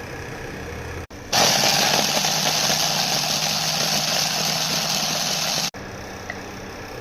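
A small electric kitchen motor, such as a mixer grinder, running for about four seconds, starting and stopping abruptly.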